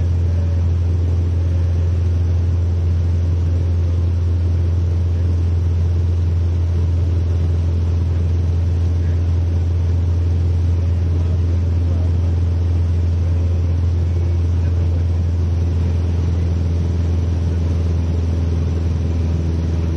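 Mooney single-engine piston aircraft in cruise, its engine and propeller making a loud, low, steady drone heard inside the cockpit.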